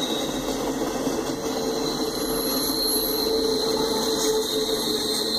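Autorack freight cars rolling past, the steady noise of steel wheels running on the rails, with a thin high steady tone over it.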